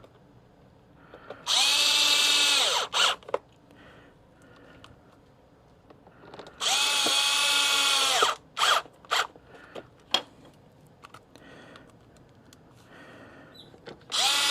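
Power drill driving screws into an instrument cluster's back plate: two runs of about a second and a half, each winding down in pitch as it stops, followed by a few short taps of the trigger.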